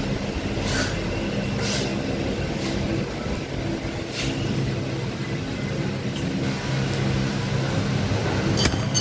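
Steady low hum of a motor vehicle engine, with a few light, sharp clinks of cutlery against a plate.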